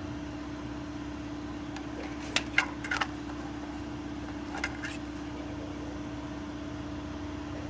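A steady machine hum at one pitch, with a few sharp clicks or knocks about two and a half seconds in and again near the middle.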